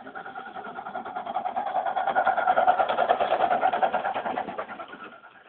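Miniature railway locomotive Monarch working hard up a 1 in 35 gradient: a fast, even beat over a steady tone, growing louder to a peak about halfway through, then fading away near the end as it passes.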